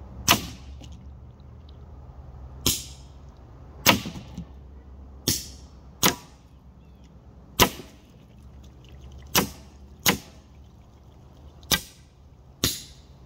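AEA HP SS Plus semi-automatic .25-calibre PCP air pistol firing a ten-round magazine: ten sharp cracks at uneven gaps of about one to one and a half seconds. To the shooter the string sounded like misfiring, though every round went off.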